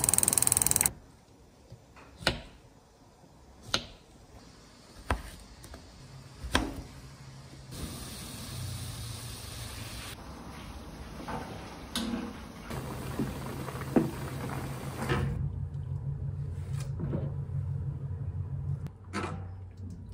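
Home cooking sounds: a loud hiss for about the first second, then a series of sharp knocks and clacks of pans and utensils, and stretches of zucchini slices sizzling in oil in a pan, over a low steady hum.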